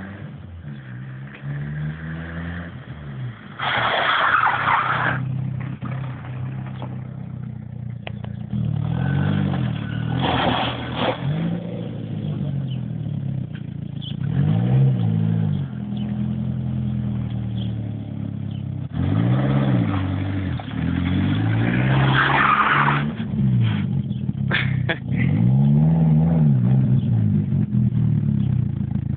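A small hatchback's engine revved up and down over and over, its pitch climbing and falling every couple of seconds, with three louder bursts of tyre skidding.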